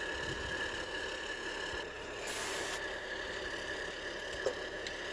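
Compressed air hissing steadily through an air chuck held on a truck tire's valve while the tire is aired up, with a short louder burst of hiss a little past two seconds in; the chuck is not staying on the valve as it should. A small click near the end.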